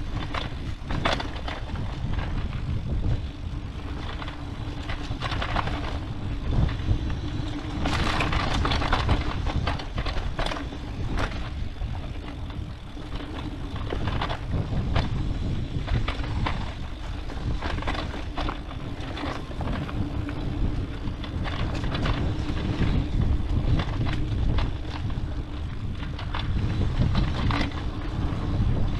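Mountain bike rolling down a dirt trail: a low rumble of the tyres over dirt and rocks, with frequent sharp rattles and clacks as the bike hits bumps, over a steady hum.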